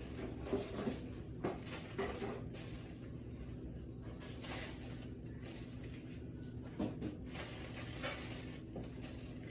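Soft rustling and light handling noises, short and irregular, as slices of deli ham are piled onto sandwiches, over a steady low hum.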